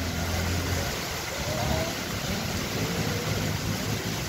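Heavy rain falling in strong wind: a steady, dense hiss, with a low rumble in the first second and a motor vehicle's engine running underneath.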